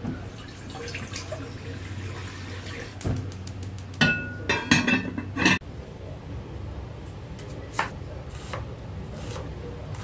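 A stream of water pouring into a clear glass cooking pot, followed by loud clattering with a brief ringing glass clink about four seconds in. The sound cuts off suddenly, and a few light knocks follow in a quieter stretch.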